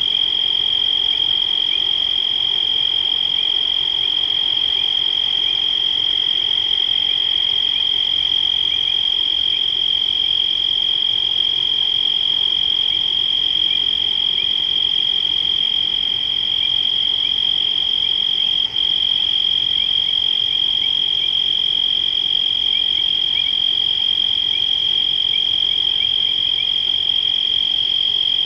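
Steady chorus of frogs and insects: a continuous high-pitched trill that holds one pitch throughout, with faint short chirps scattered beneath it.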